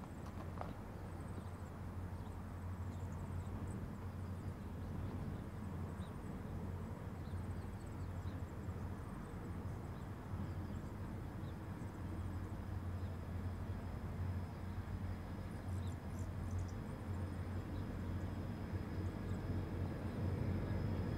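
Distant Pacific National 81 class diesel locomotives approaching: a steady low engine drone that slowly grows louder, rising more near the end. Small birds chirp faintly now and then.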